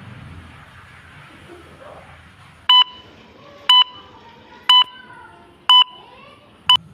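Countdown timer sound effect: five short electronic beeps, one per second, starting about two and a half seconds in, each a two-tone bleep.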